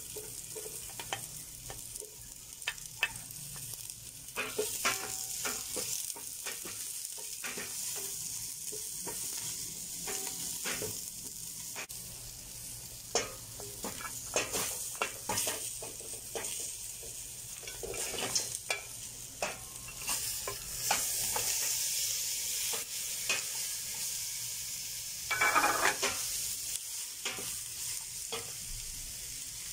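Onion and ginger sizzling in oil in a stainless steel pot, stirred and scraped with a wooden spoon in many short strokes. Pork ribs go in about halfway through, and the sizzle gets louder in the last third.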